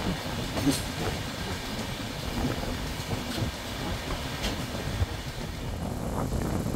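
A sleeper-class passenger train coach running along the track: a steady rumble of wheels on rail, with a few sharp clicks as the wheels pass over rail joints.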